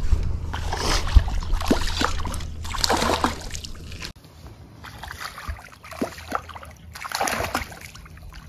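Hooked bass thrashing and splashing at the water's surface beside the boat, in a run of irregular splashes.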